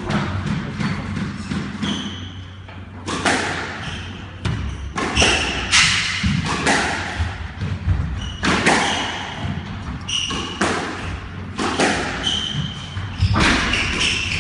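Squash ball being struck by rackets and smacking off the court walls during a rally, a sharp hit about every second with a short echo, along with brief squeaks of court shoes on the wooden floor.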